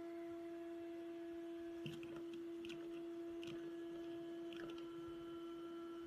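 Handheld car vacuum cleaner running with a steady whine while it sucks up coins, which clatter into its clear plastic dust canister as a handful of sharp clicks from about two seconds in.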